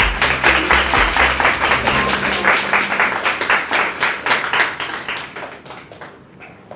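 A small group applauding, with many hands clapping at once, then thinning out and dying away about five to six seconds in.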